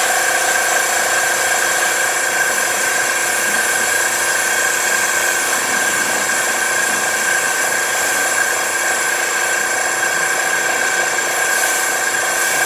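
Eco Rinse machine's pump running steadily with a high whine, while its spray wand hisses water onto a car's front end in a pre-wash rinse-down.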